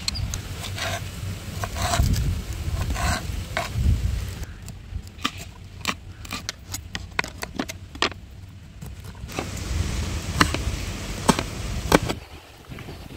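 Cooking sounds: a utensil scraping and knocking against a cooking vessel in a run of sharp clicks, with some sizzling of frying food.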